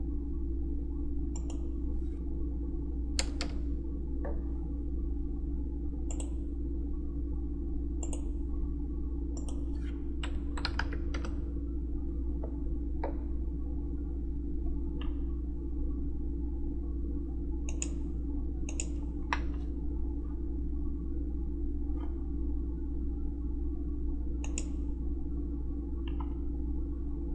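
Computer keyboard and mouse clicks, scattered and irregular, sometimes two or three in quick succession, over a steady low hum.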